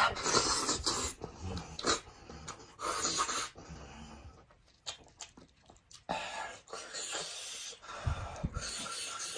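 A person eating sheep's head meat by hand, with loud slurping and sucking at the meat and sauce. It comes in bursts: a sharp one at the very start, another about three seconds in, and a longer stretch through the last three seconds.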